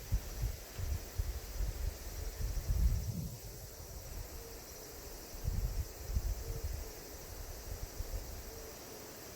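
Wind buffeting the microphone in gusts, over a steady high-pitched chorus of insects; the gusts ease off in the last couple of seconds.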